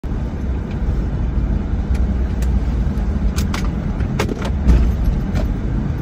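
Car road noise heard from inside the cabin while driving: a steady low rumble of engine and tyres, with a few light clicks scattered through the middle.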